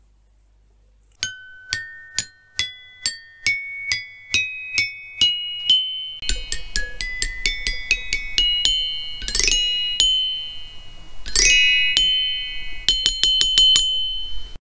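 Closing jingle: a short high-pitched melody of single ringing notes that climbs step by step, speeds up, and has two quick upward sweeps. It finishes in a rapid run of notes and cuts off sharply.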